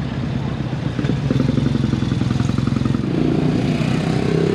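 Motorcycle engine running with a rapid, even firing beat, growing louder about three seconds in.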